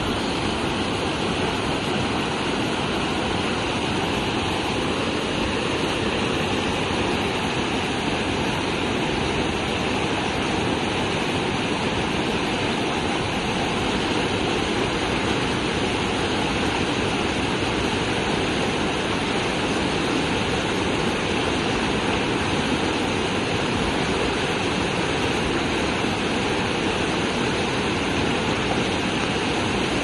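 Fast-flowing, muddy river in spate, its water churning and rushing in a steady, unbroken sound.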